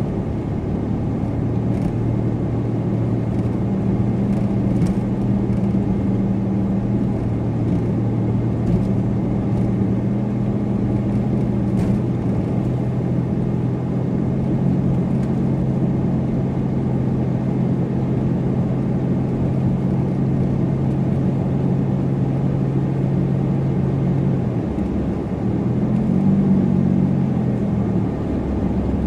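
Supercharged car driving with a steady engine drone over road noise. Near the end the engine note shifts, rising briefly and then falling away.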